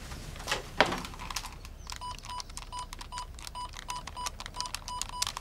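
Numbers being keyed in on a fax machine's telephone handset keypad: about ten short, even-pitched confirmation beeps, each with a button click, about three a second, starting two seconds in. Before them, about half a second in, come two sharp knocks.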